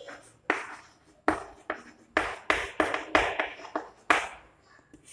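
Chalk writing on a chalkboard: a dozen or so sharp taps and short strokes of chalk on the board at an uneven pace, thinning out in the last second.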